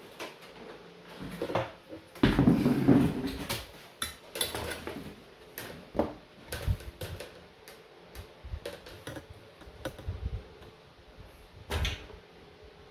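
Scattered knocks and clicks of small objects being handled and set down on a work surface, with a louder clatter about two seconds in that lasts about a second.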